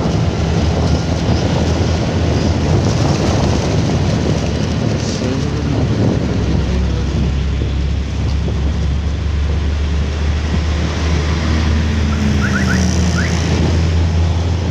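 Steady rushing wind noise on the microphone, with road and engine noise from a moving motorcycle riding in traffic.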